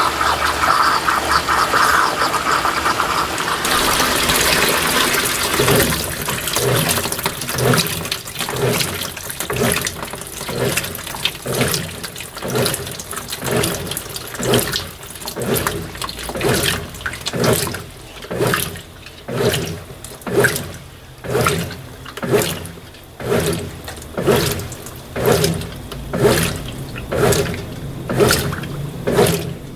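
Brastemp BWT12 top-load washing machine in its rinse: water pouring into the tub stops about four seconds in, then the washer agitates the load, the water sloshing in a rhythmic swish about once a second.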